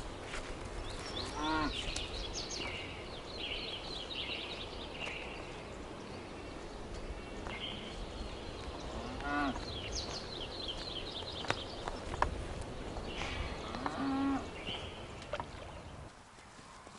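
Cattle lowing: three short calls spread a few seconds apart, with high chirping in between and a low wind rumble.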